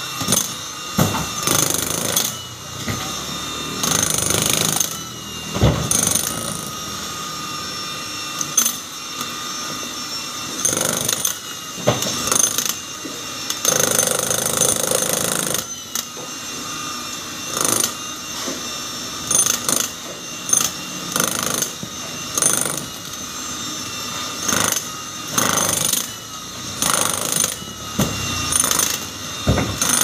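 Handheld electric demolition hammer (jackhammer) chiselling into a concrete wall. It hammers in repeated bursts of one to two seconds with short pauses between, and the longest run comes about halfway through.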